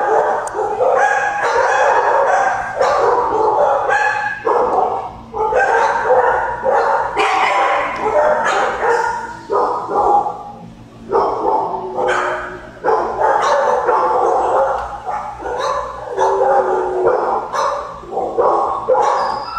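Kennel dogs barking and yipping almost without pause, many calls crowding over one another, with a few brief lulls.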